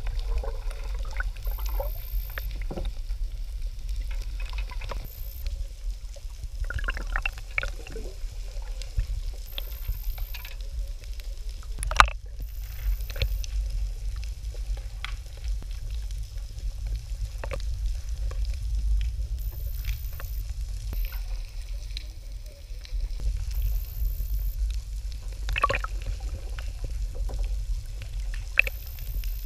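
Muffled underwater sound picked up through an action camera's waterproof housing: a steady low rumble of water with scattered sharp clicks and taps, the loudest about twelve seconds in, and a few short bubbly bursts.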